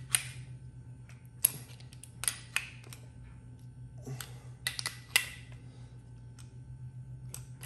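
Pliers and an adjustable wrench clicking and clinking against a brass pressure-washer fitting as it is gripped and tightened by hand, in sharp irregular clicks. A steady low hum runs underneath.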